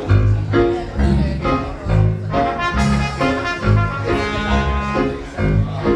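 Upbeat instrumental show-tune introduction led by brass, in a swing style, with a bass note on roughly every half-second beat.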